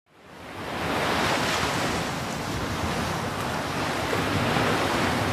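A steady rushing noise fades in from silence over about the first second, then holds evenly.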